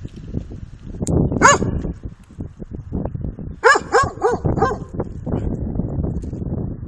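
A dog barking: a single bark about a second and a half in, then a quick run of four barks about two seconds later, over a steady low rumble.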